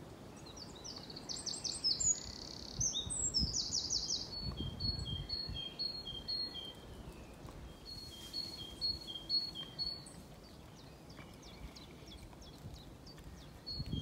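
Songbirds singing in woodland: a rapid high trilling phrase in the first few seconds, then a repeated two-note song in several short runs, high and low notes alternating. A low rumble comes and goes around four to five seconds in.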